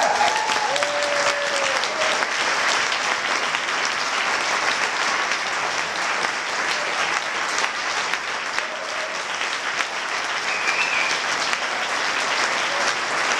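Large audience applauding steadily after a tango piece has ended.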